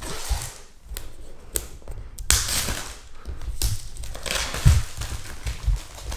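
Plastic wrapping being pulled and crumpled off a product box: irregular crackling with several sharp clicks.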